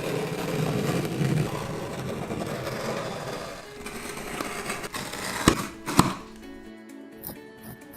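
Background music: a dense wash for the first few seconds, two sharp knocks about half a second apart a little past the middle, then a lighter tune with a steady beat.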